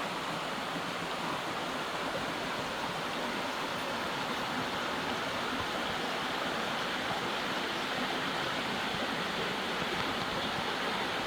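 A creek babbling steadily over rocks: an even rush of running water.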